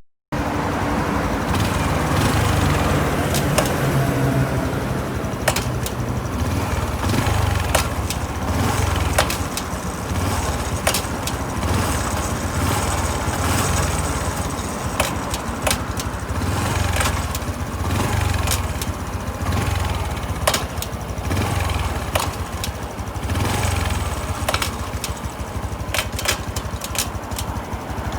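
Honda CT125 Hunter Cub's single-cylinder engine running through repeated gear changes, with sharp clicks at the shifts. The owner hears the shift noise as a dull, plasticky clack rather than the usual clean click, as if something inside were hitting a light resin cover: an abnormal shift noise on a nearly new bike.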